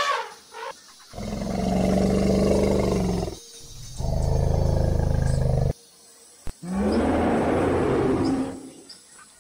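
Deep animal roars, sound effects for an animated gorilla: three long calls of about two seconds each, the middle one with a fast, even throb.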